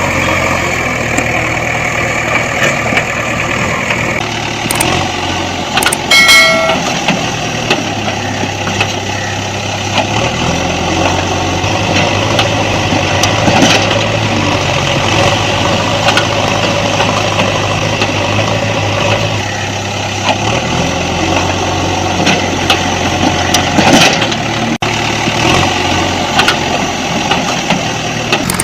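Vehicle engine running steadily, its pitch stepping up and down a few times, with a short beep about six seconds in.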